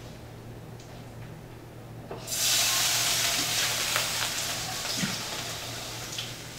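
A hot frying pan sizzling loudly. The sizzle starts suddenly about two seconds in and slowly dies down, with a few clicks and taps in it.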